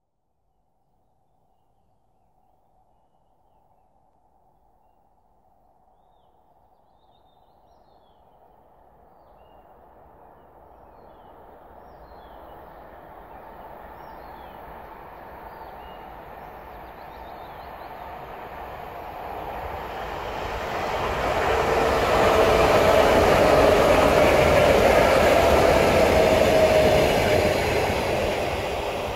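ET2M electric multiple unit approaching from far off, its rumble growing steadily louder until it passes at speed about three-quarters of the way through, with a steady tone in the noise as it goes by, then starting to fade near the end.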